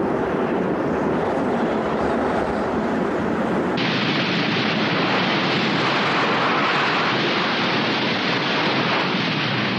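Strong sandstorm wind blowing hard across the microphone: a loud, steady rushing noise with no breaks. Its tone changes abruptly about four seconds in.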